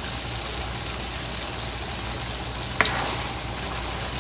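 Beef meatballs and ground beef sizzling steadily in oil as they are stir-fried in a non-stick pan and turned with a spatula, with one sharp click about three seconds in.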